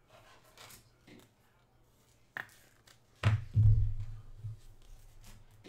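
Hands handling trading card packs on a tabletop: a sharp click a little over two seconds in, then dull low thumps against the table about a second later, with faint rustling around them.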